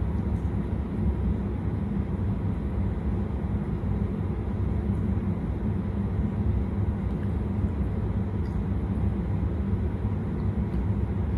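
Steady low rumble with a faint hum, the loudest sound, over light sizzling of potato fries in hot oil as they are lifted out with a spatula.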